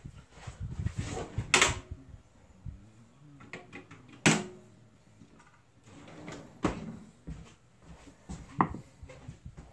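Shop tools clattering as a pry tool is searched for and picked up: a handful of sharp knocks and clunks with quieter rattling between them, the loudest about four seconds in.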